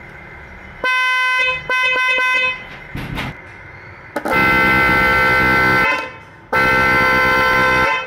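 Electric HB snail horns blowing as their leads are touched to a battery: two short blasts about a second apart, a brief blip, then two longer blasts of about a second and a half each. The later two sound fuller and lower, with both horns wired up and sounding together.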